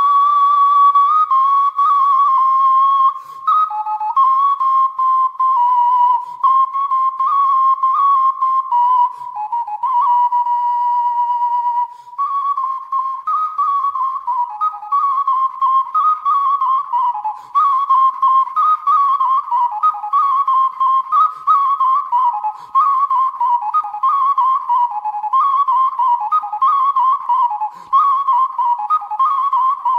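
Background music: a solo flute-like wind instrument plays a single high melody, with quick ornamental turns between the notes.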